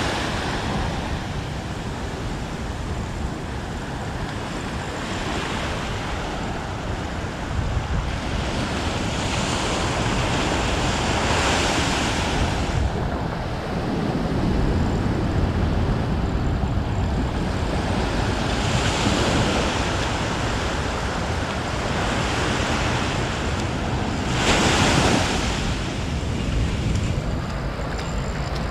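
Sea waves breaking and washing on the shore, swelling about every six seconds, with wind rumbling on the microphone.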